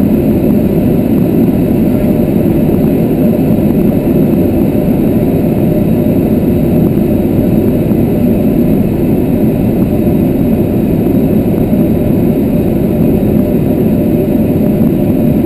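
Steady, loud engine and airflow noise of an airplane in flight, heard from inside the cockpit; an even, low rush with no change in pitch.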